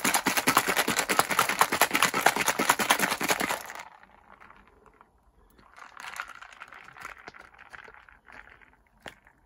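Ice cubes rattling hard inside a Twistails cocktail maker cup being shaken, a rapid clatter that stops abruptly about four seconds in. Fainter handling and scraping follow as the pod on top of the cup is gripped and twisted.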